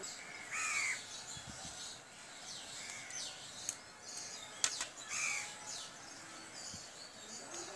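Crows cawing three times, with smaller birds chirping at a higher pitch. Two sharp clicks come near the middle, the second one the loudest sound.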